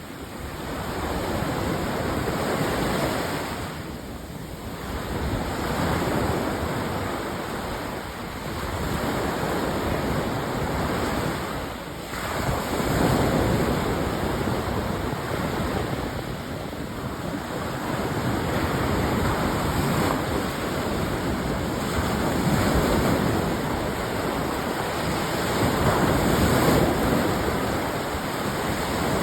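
Rough sea surf breaking and washing on the shore, the rush swelling and easing every few seconds, with wind buffeting the microphone.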